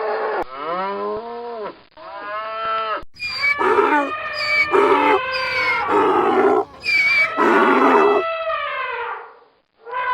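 A string of drawn-out animal calls from a sound-effects track, each a pitched cry that slides downward. A short break comes just before two seconds in, and another near the end.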